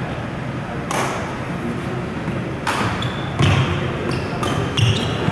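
Badminton rally: rackets hitting the shuttlecock in sharp cracks, one about a second in, then quicker exchanges from under three seconds on, with brief squeaks of court shoes on the floor, ringing in a large hall.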